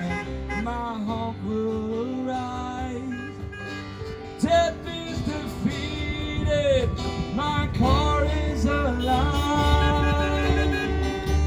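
Country-style song with acoustic guitar and a singing voice, with a brief loud sound about four and a half seconds in.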